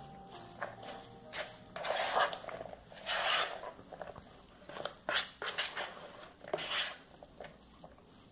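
Spatula stirring a wet filling of canned sardines and chopped vegetables in a plastic bowl: a series of short scraping strokes, irregularly spaced.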